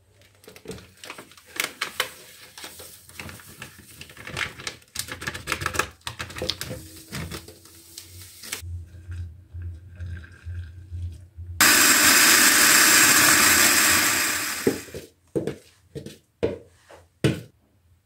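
Thick cocoa pudding scraped and knocked out of a pot into a metal baking tray, a clattery run of scrapes and knocks, followed by a quieter stretch as milk is poured into a plastic jug. About twelve seconds in, an electric mixer runs steadily for about three seconds, whipping whipped-cream powder with cold milk, then stops, followed by a few sharp knocks.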